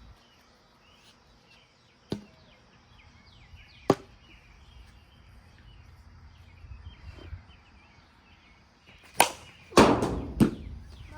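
Sharp plastic cracks of a wiffle ball bat hitting the ball, a few seconds apart, with a louder clatter near the end. Birds chirp faintly throughout.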